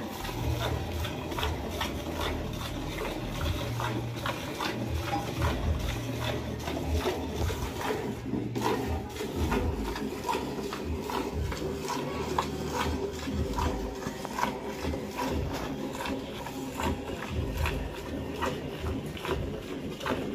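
A cow being milked by hand: milk squirts rhythmically from the teats into a part-filled steel pail, a little more than one squirt a second.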